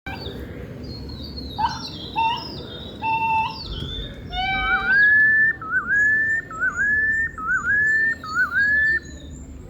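Bird song of clear whistled notes: a few separate whistles and slurs, then a rising whistled phrase repeated about five times, with thin high notes over it in the second half.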